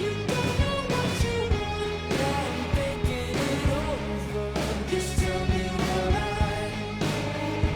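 Background music: a pop-rock song with guitar, a steady beat and a singing voice.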